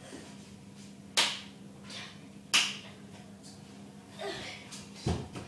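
Two sharp snaps about a second and a half apart, over a faint steady low hum.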